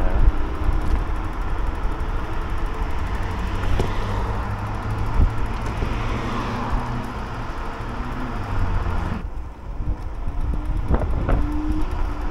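Car traffic passing on a city street, with low wind rumble on the microphone of a moving rider. A passing vehicle swells and fades in the middle, and the sound thins suddenly about nine seconds in.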